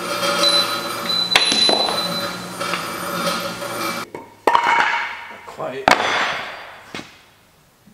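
Metal engine parts clanking and knocking against a bare Caterpillar 1693 diesel engine block during teardown, with one sharp strike that rings a little over a second in. The steady hum drops out abruptly about halfway, and two louder sharp knocks follow.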